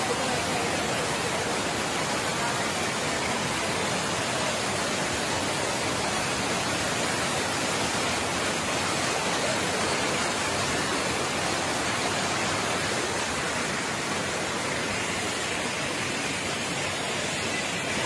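Water pouring over a low weir and churning into white water in the pool below, a steady, even rush of noise that holds at the same level throughout.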